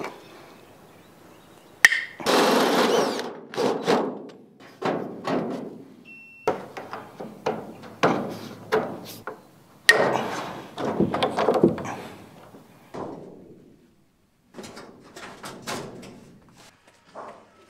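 A run of dull knocks and thuds from hands-on building work, about one or two a second, with a longer scraping stretch early on and a short dead break near the end.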